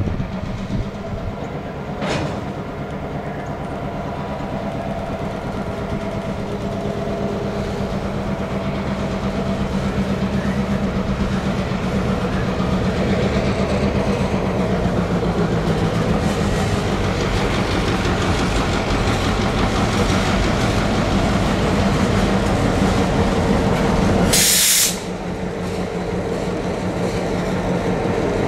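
Freight train of loaded lumber centerbeam flatcars rolling past with wheel clatter, over the steady hum of a BNSF EMD GP38-2 locomotive's two-stroke V16 diesel, which grows louder as the locomotive draws near. A single clank about two seconds in and a short sharp hiss near the end.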